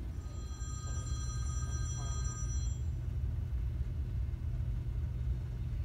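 A phone rings for about two and a half seconds: a steady electronic chord of several pitches that starts right away and then cuts off. Under it runs a continuous low rumble.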